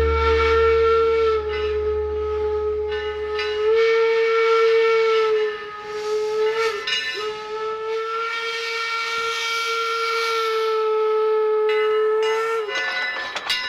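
Steam whistle of the Eureka, Eureka & Palisades No. 4, a narrow-gauge 4-4-0 steam locomotive, blowing one long steady blast for about twelve seconds. It briefly falters about halfway through and cuts off about a second before the end.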